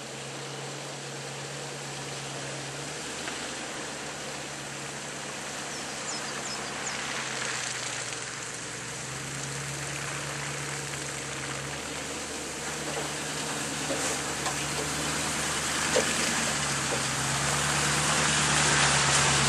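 A four-wheel drive's engine labouring slowly up a rocky creek bed, its note rising and falling every few seconds and growing louder as the vehicle comes close and passes near the end. A few sharp knocks near the end, from the tyres and body on rock.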